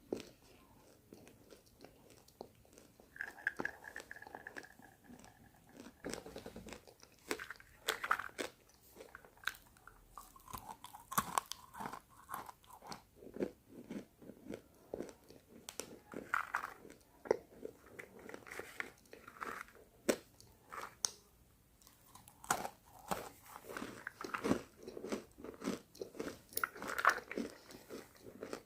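Pieces of roasted pink chalk being bitten and chewed close to the microphone, giving many sharp, dry crunches in irregular runs. The roasting has left the chalk brittle.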